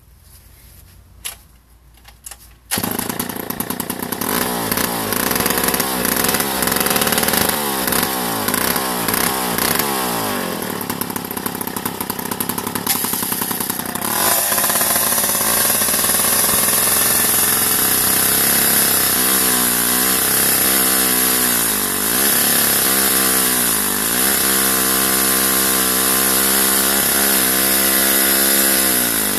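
Vintage 1958 Jobu 93 two-stroke chainsaw catching and starting about three seconds in, then running with an uneven, rising and falling pitch. About halfway it runs at high speed and then saws into a log, its pitch sagging and recovering under the load.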